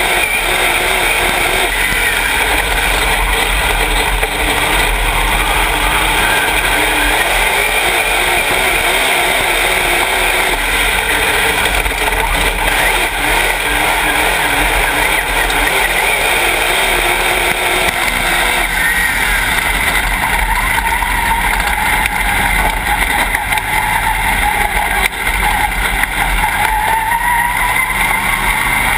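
Dirt late model race car's V8 engine at racing speed, heard from inside the cockpit, loud and continuous, its pitch rising and falling through the laps.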